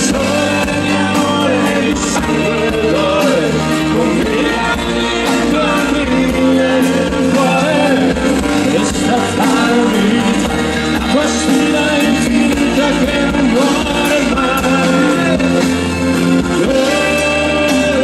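Live rock band playing a song: electric guitars, bass guitar, drum kit and keyboards at a steady, loud level.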